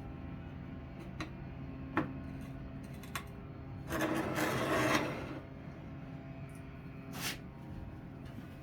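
An object scraping as it is slid across the saw table toward the blade, about a second long midway through, with a few light clicks and taps before and after.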